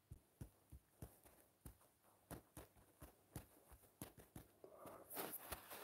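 Near silence with faint, irregular light taps, about two or three a second, from dabbing on a phone's touchscreen while painting. A soft hiss comes in near the end.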